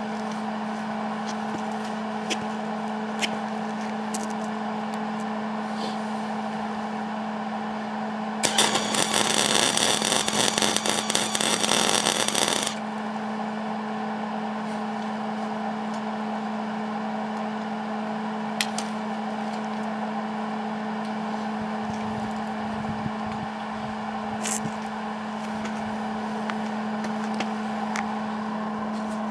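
Electric arc welder: a steady hum, then about eight seconds in a loud crackling burst of arc welding that lasts about four seconds and stops abruptly.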